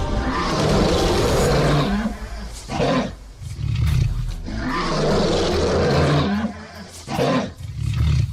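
Lion roaring: two long, loud, deep roars, each followed by shorter grunting calls.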